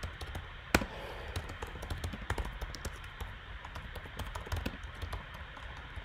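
Typing on a computer keyboard: a quick, uneven run of keystroke clicks, with one much louder click just under a second in.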